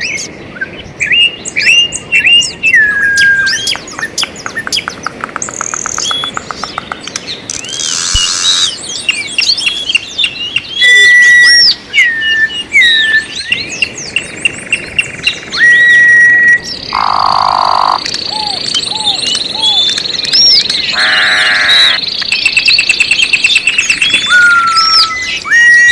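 Several songbirds singing at once: overlapping chirps, whistled notes and rapid trills, with a few louder bursts of calling.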